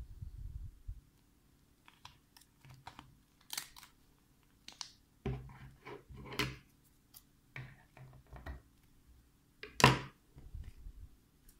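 Hands handling small fishing lures and plastic packaging on a wooden table: scattered clicks, taps and brief plastic crinkles, with one sharp knock about ten seconds in, the loudest sound.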